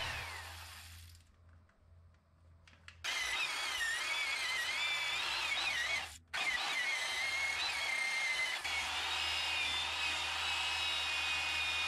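Old electric drill spinning a wire wheel against the rusty bearing hub mounting surface of a Subaru rear knuckle, scrubbing off rust. The drill winds down and stops at the start, then runs again from about three seconds in with a wavering whine, cutting out briefly near the middle before running on.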